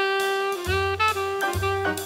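Background jazz music: a saxophone melody holding a long note, then moving through shorter notes over a bass line.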